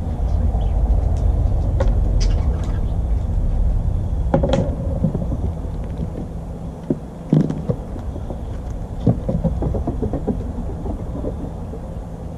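A steady low rumble, strongest in the first four seconds, under scattered knocks and clicks of acorns being handled by a fox squirrel on a wooden deck.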